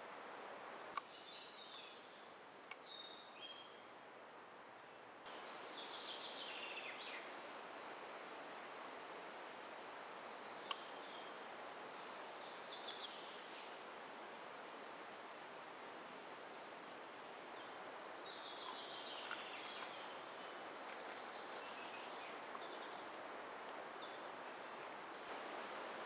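Woodland ambience: songbirds singing in short chirping and warbling phrases, several bouts, over a steady background hiss, with a couple of sharp clicks.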